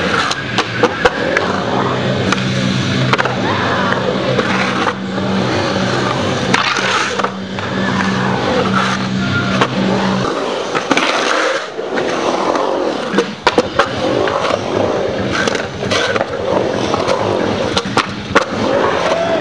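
Skateboard rolling and carving around a concrete bowl: continuous wheel noise on the concrete with sharp clacks and scrapes scattered throughout as the board hits the coping and lands.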